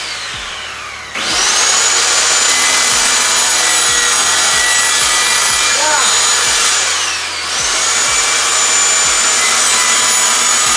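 Handheld circular saw cutting a thin wall panel. Its motor whine falls off as the trigger is let go just after the start, then spins back up and cuts steadily; about two-thirds through it winds down again briefly before spinning up and cutting once more.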